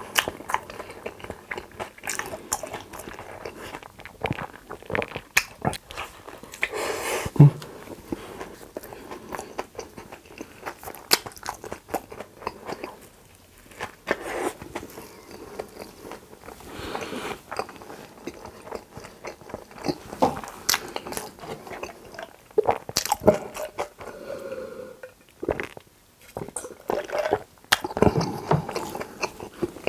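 A person biting into and chewing a gochujang bulgogi burger, with many small wet clicks and crunches. A bite about fourteen seconds in.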